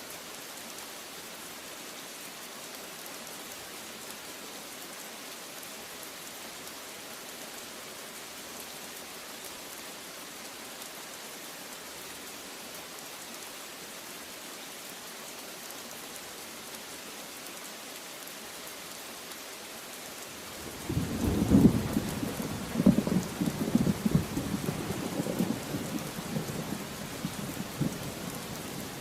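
Steady heavy rain hissing, then about two-thirds of the way through a roll of thunder breaks in, loud at first and rumbling on as it slowly fades.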